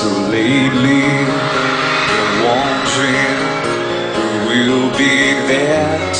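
Mellow acoustic rock music: guitar with a male voice singing a slow melody.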